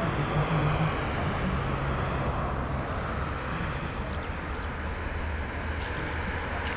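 Steady low mechanical rumble of machinery on an airport apron, with a low hum that fades out about three seconds in.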